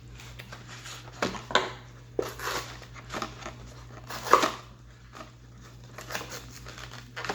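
Plastic toy packaging being worked at by hand: irregular crinkles, rustles and sharp clicks as a figure is pulled free of its plastic tray and retaining bands, with the loudest crackle about four seconds in. A steady low hum runs underneath.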